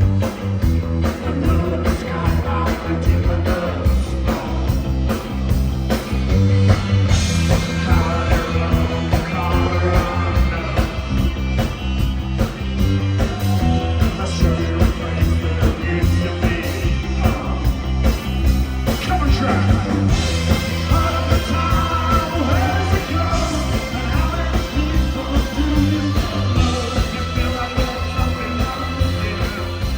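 Indie rock band playing live: drums, bass and guitars with a singer.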